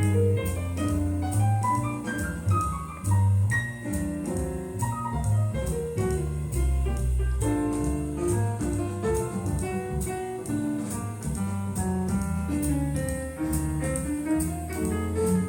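Instrumental break of a vocal jazz recording, piano-led over a walking bass line, played back through a Sansui CA-3000/BA-3000 amplifier pair and home-built four-way speakers and picked up by a phone microphone.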